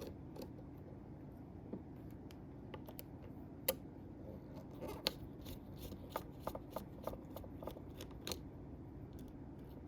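Light clicks and taps of small metal parts as a SOG Terminus XR folding knife is handled and its screws are worked out with a small Torx driver, with three sharper clicks standing out.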